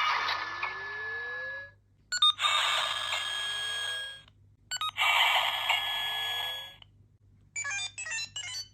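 Kamen Rider 555 series toy transformation belt playing its electronic transformation sound effects: three effects of about two seconds each, a hiss with steady tones and a rising sweep, separated by short clicks, then a quick run of short beeps near the end.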